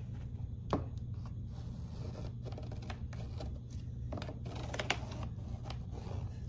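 Felt-tip marker scratching around a car speaker on an HDPE plastic board as its outline is traced, with a few light clicks and knocks from the speaker and marker being handled. A low steady hum runs underneath.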